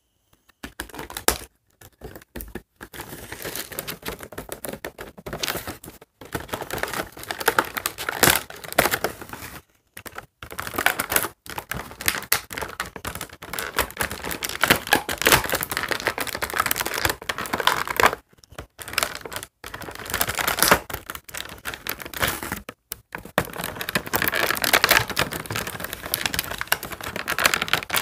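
A doll box's packaging being opened by hand: plastic and cardboard crinkling, rustling and tearing, with rapid clicking and rattling, in stops and starts.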